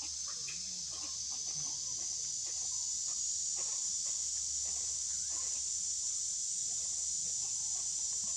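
Steady, high-pitched insect chorus from the surrounding forest, with faint scattered short calls and clicks beneath it.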